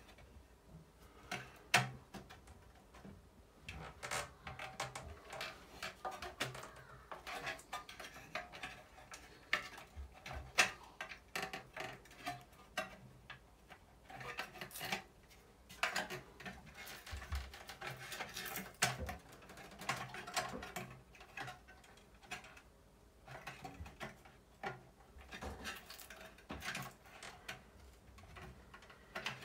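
Sheet-metal housing of an attic exhaust fan being worked loose with a hand tool: irregular metallic clanks, scrapes and clicks, with the metal knocking and rubbing against wood.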